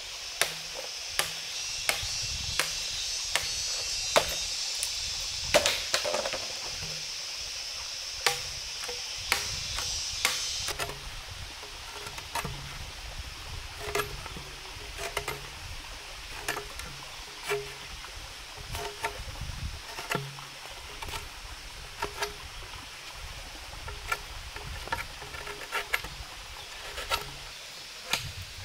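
Machete chopping and cutting bamboo and wood: irregular sharp knocks, roughly one every second or two, over a high steady hiss that stops about eleven seconds in.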